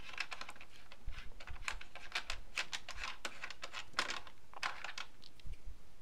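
A speaker binding post nut being unscrewed by hand: a run of irregular light clicks and scratches, several a second, as the threaded nut turns.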